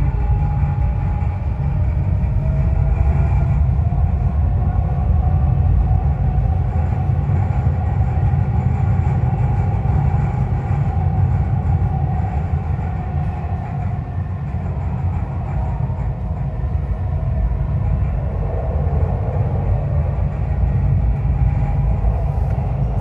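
Dubai Metro train running on an elevated track, heard from inside the carriage: a steady low rumble with a fainter whine above it.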